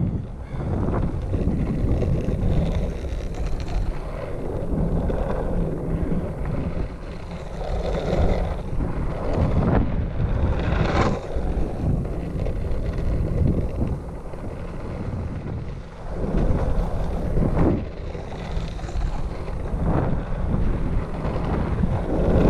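Longboard's 66 mm Powell-Peralta Snakes urethane wheels rolling over rough aggregate concrete and old slurry-sealed asphalt: a steady, gritty rumble with wind buffeting the camera microphone. A few short, louder bursts break in here and there.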